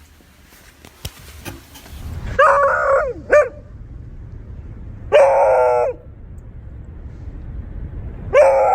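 Beagle barking: four loud pitched barks with clear harmonics, a long one about two seconds in, a short one just after it, another about five seconds in, and a last one near the end.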